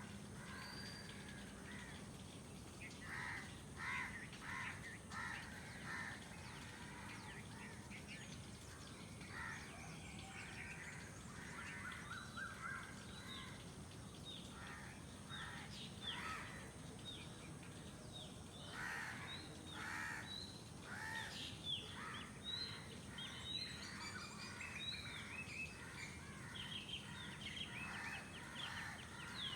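Morning outdoor bird ambience: crows cawing again and again, mixed with smaller birds chirping, over a faint steady background hum.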